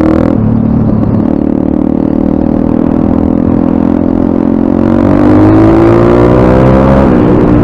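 Pit bike's 140 cc single-cylinder four-stroke engine (2019 M2R RF140) under way. The revs dip just after the start, climb steadily for several seconds, then drop sharply shortly before the end and carry on lower.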